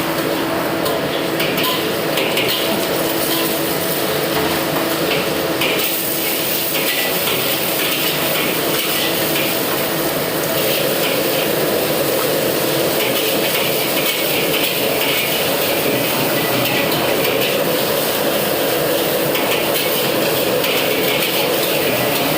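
Food sizzling as it fries in a pan, stirred with a metal spatula that scrapes and clinks against the pan, steadily throughout.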